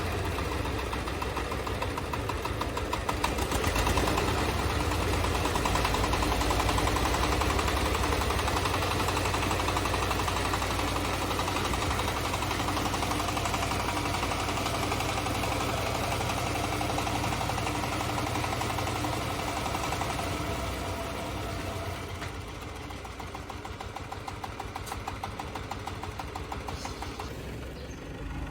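Crawler compact tractor's engine running steadily with a fast, even pulse. It gets louder about four seconds in and eases off twice, about twenty-one seconds in and again near the end.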